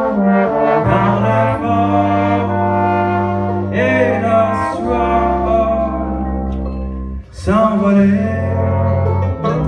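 Live band playing an instrumental passage: a brass section led by trombones holds long notes over banjo, bass and drums, with a brief drop about seven seconds in before the band comes back in.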